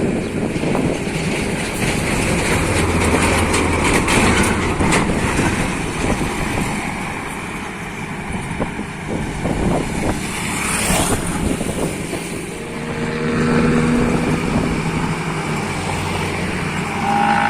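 Motor engines running steadily, with a vehicle passing about ten seconds in and a pitched engine note coming up near the end.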